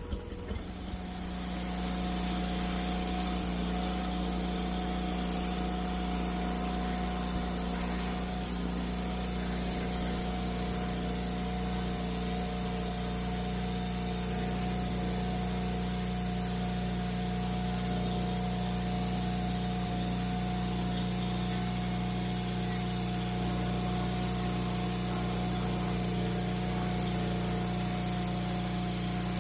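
Wood-Mizer portable bandsaw mill's engine running steadily while the band blade saws lengthwise through a log. It builds up over the first couple of seconds, then holds at a constant speed.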